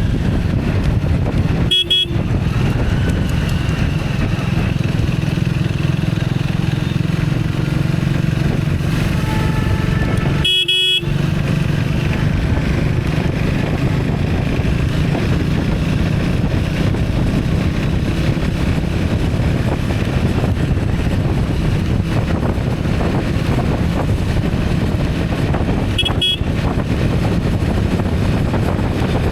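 Steady rumble of a moving vehicle with wind on the microphone, and horns honking faintly now and then. The sound drops out briefly three times.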